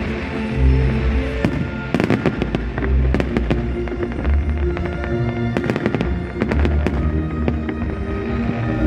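Fireworks salute: repeated sharp bangs and crackles, thickest from about two seconds in, over loud music with steady sustained notes.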